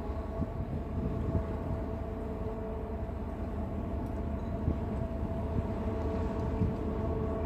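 Steady low drone of cruise-ship machinery, with a few constant hum tones over a rumbling noise that rises and falls slightly.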